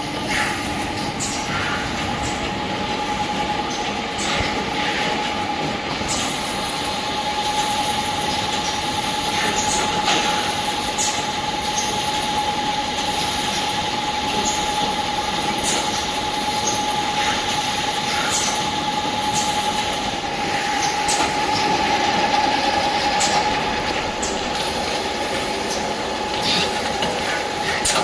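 Automatic stand-up pouch sorting, counting and boxing machine running: a steady mechanical noise with a constant whine, and sharp clicks and knocks from the mechanism every second or two.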